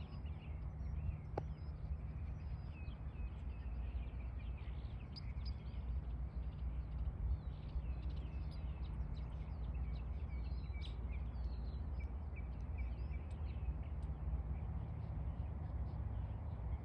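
Many small birds chirping and calling, their short notes overlapping, over a steady low rumble.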